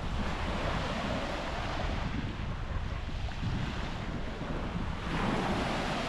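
Sea water washing in small waves, a steady rushing noise, with wind rumbling on the microphone.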